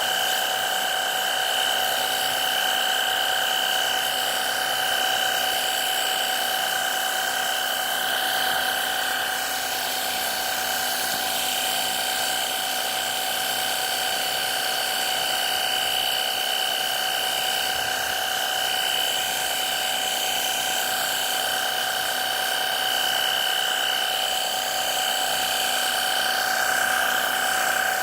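Battery-powered cordless pressure washer running steadily while spraying, its small motor and pump giving a high, even whine.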